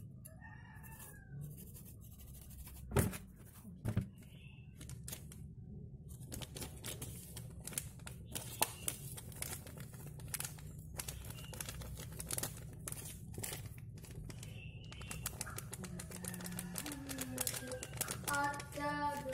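Kitchen handling noises while fish are scored and seasoned by hand: two sharp knocks a few seconds in, then a long run of quick crinkles and light taps as seasoning is sprinkled.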